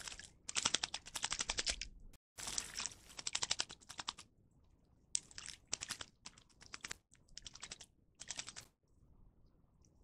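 A young blackbird splashing in a stone bird bath, fluttering its wings and dunking in the water. Bursts of rapid splashing, two long spells in the first four seconds, then several shorter ones, the last about eight and a half seconds in.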